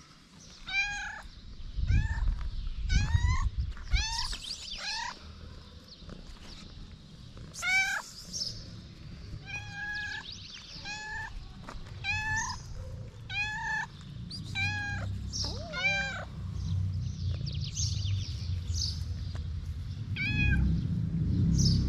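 A stray cat meowing over and over: short, high calls coming one or two a second, with a couple of brief lulls.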